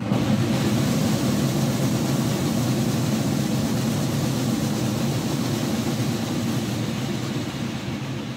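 Several field drums playing one continuous roll. It starts sharply, holds steady and eases off a little towards the end.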